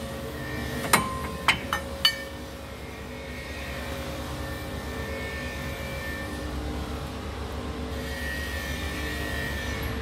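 Four sharp metallic clinks in the first two seconds, one with a brief ring, as a steel ring spanner works on the Toyota Coaster's front wheel hub nut. They come over a steady low rumble.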